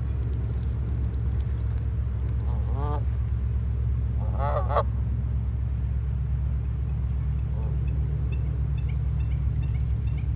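Canada geese honking: one call about three seconds in, a louder double honk about a second and a half later, and a faint one near eight seconds, over a steady low rumble.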